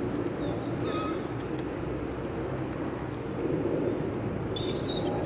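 Birds gathered at a feeding spot, giving short high chirps about a second in and again near the end, over a steady low background rumble.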